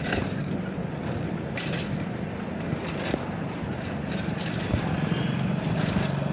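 Steady street and traffic noise heard while riding a bicycle, with a constant low hum and a few faint clicks.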